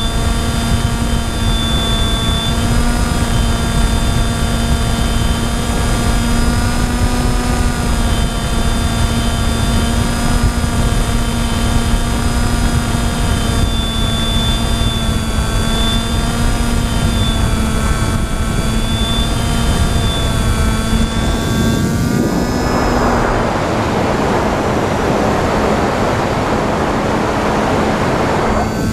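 Onboard sound of an RC FPV plane in flight: the motor and pusher propeller give a steady whine that wavers slightly in pitch, over wind rushing past the microphone. About 22 seconds in the whine drops away and the wind rush takes over until near the end.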